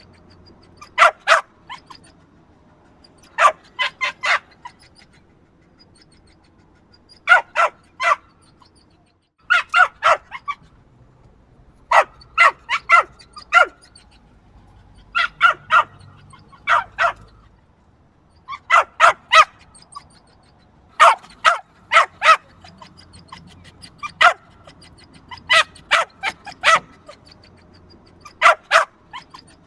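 Small yappy dog barking: sharp, high-pitched yaps in quick bursts of two to five, repeated every couple of seconds with short pauses between.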